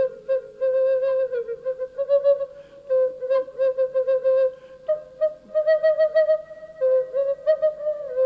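Background music: a flute playing a melody of short, ornamented notes over a steady held tone.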